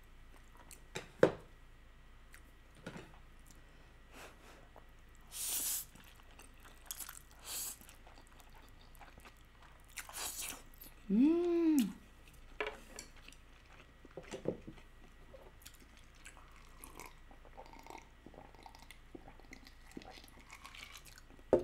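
A person eating instant stir-fried noodles with chopsticks: soft chewing and small clicks, with two loud slurps about five and ten seconds in. The second slurp is followed by a short hum that rises and falls.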